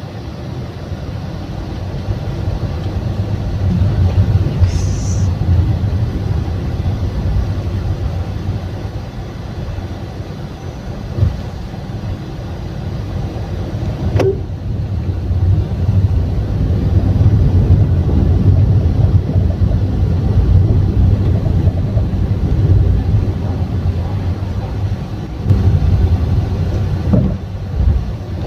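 Road noise inside a Honda Brio RS cabin while driving: a steady low rumble from tyres and road. A few short thumps come through, one about halfway and a couple near the end, along with a sharp click about halfway. The owner attributes the car's knocking to the engine support.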